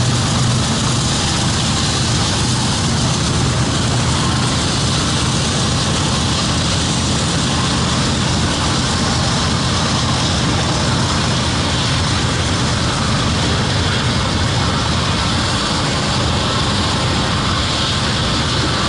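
Freight train's covered hopper cars rolling past close by: a steady rumble and hiss of steel wheels on the rails, even throughout.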